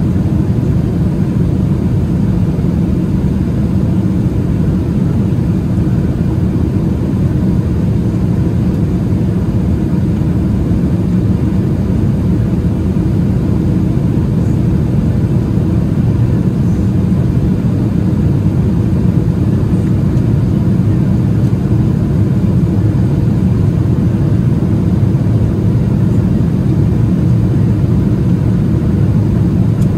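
Steady cabin drone of a Boeing 777-300ER in flight: the hum of its GE90-115B engines and the rush of air past the fuselage, heaviest in the low range and unchanging throughout.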